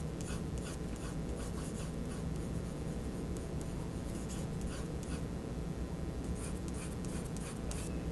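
Pencil scratching on drawing paper in runs of short, quick strokes with brief pauses. A steady low hum sits underneath.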